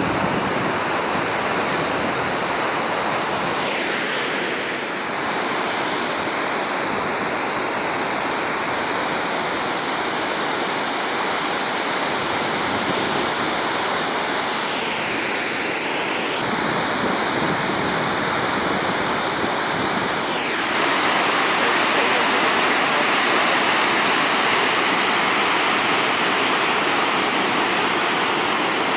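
Waterfall: a steady, loud rush of falling water, a little louder from about twenty seconds in.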